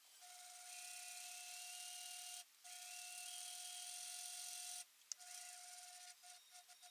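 A small electric motor running with a steady whine over a hiss, in two stretches of about two seconds each, then a shorter run and a few quick on-off blips that end near the finish.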